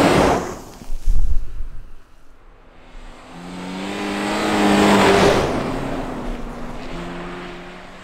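Subaru rally cars on a snow track passing close by one after the other. The first goes past at the start with a rush of tyre and engine noise and a loud low rumble about a second in. The second approaches with its engine note climbing, passes about five seconds in and fades away.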